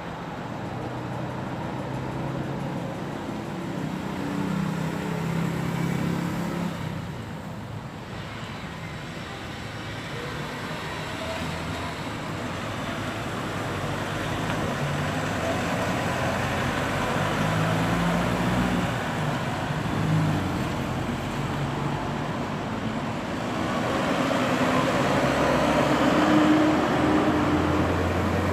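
Road traffic: motor vehicles passing one after another, each engine swelling and fading, the loudest passing near the end.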